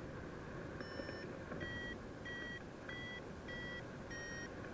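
Paraglider variometer beeping, short pitched beeps about one and a half a second, the pitch rising slightly and then falling again. The beeps are the instrument's signal that the glider is climbing in lift. Under them is a steady rush of wind on the microphone.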